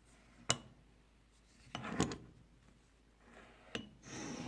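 Hand tools being handled and set down on a surface: a sharp click, a short cluster of knocks and rubbing about two seconds in, and another click near the end.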